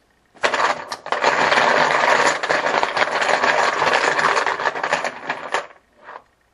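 Continuous dense rattling, like a container of small hard pieces being shaken or tumbled to pick a random result, lasting about five seconds and then stopping; a brief rustle follows.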